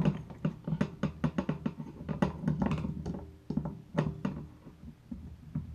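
Quick, irregular light clicks and knocks from a stainless steel sink basket strainer being held in the drain while its nut is threaded on from below. The clicks thin out near the end.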